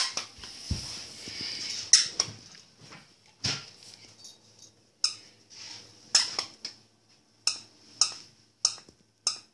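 Squeaker in a plush duck dog toy giving short, sharp squeaks as a puppy chews and bites on it, the squeaks coming faster in the second half.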